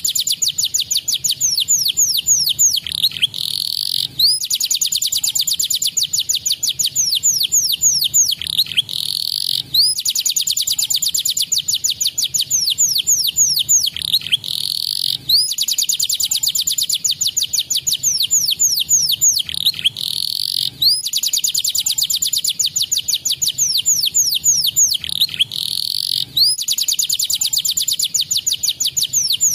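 Canary singing: long fast trills of rapidly repeated high notes broken by downward-sweeping whistles, the same song phrase coming round again about every five and a half seconds.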